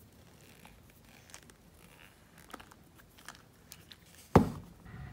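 Cured silicone rubber mold being peeled and flexed off a potato, with faint rustling and small clicks, then one sharp knock about four seconds in as the potato comes free.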